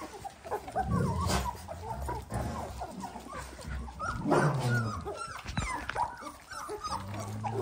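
Dalmatians whimpering, with many short high squeaks and one longer falling whine about halfway through.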